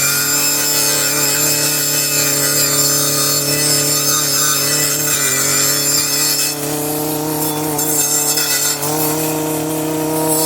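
Circular saw running at a steady whine while cutting through small tree stems. The motor note dips briefly under load a couple of times past the middle.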